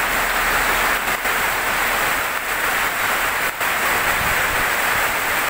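Heavy tropical rain falling steadily, a dense, even rush of rain.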